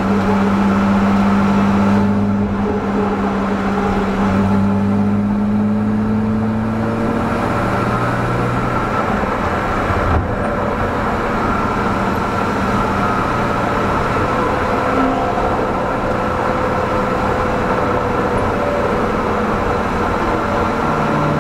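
BMW 325i's 2.5-litre straight-six pulling at speed, heard from inside the car with steady road and tyre noise. Its strong low note fades back about seven seconds in, leaving a lighter engine note over the road noise.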